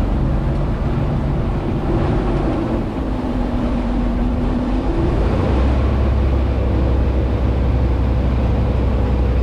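Boat engine running under way, with a steady rushing noise over it. The engine's pitch shifts between about two and five seconds in, and a deeper drone grows stronger a little after halfway.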